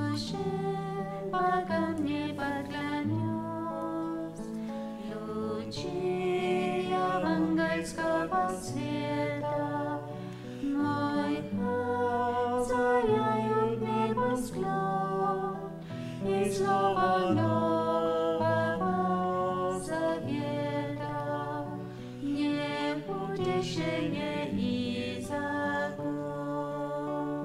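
A slow hymn sung over instrumental accompaniment, with long held bass notes under the melody.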